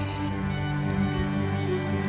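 Background music with sustained, held low notes.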